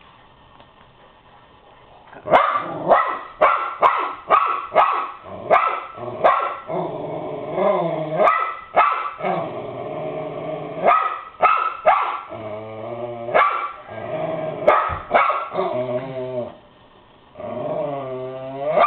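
West Highland White Terrier barking in quick, sharp barks, mixed with longer growls, starting about two seconds in after a quiet start, with a brief pause near the end.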